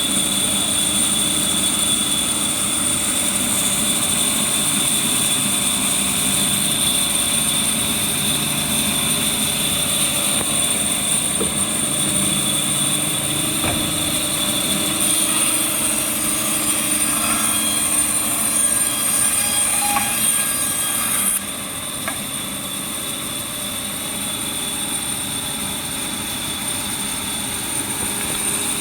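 Automatic band saw and its hydraulic oil pump running steadily with a high-pitched whine while sawing wood core stock in one-way mode. The sound grows busier around the middle and then drops a little in level about two-thirds of the way through.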